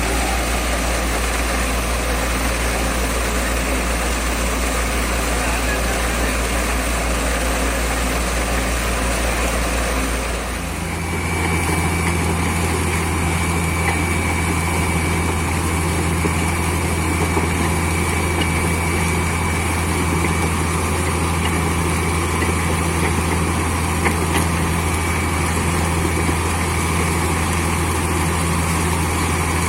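Borewell drilling rig's engine and air compressor running with a loud, steady drone. About ten seconds in, the drone shifts up to a higher steady note and a faint high whistle joins it.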